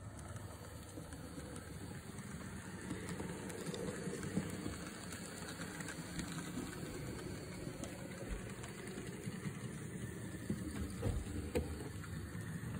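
Model railway locomotive, a miniature Mh.4 steam tank engine, running along the layout track with its train: a steady rumble of the motor and rolling wheels that grows a little louder about three seconds in. A few sharp clicks come in the later part.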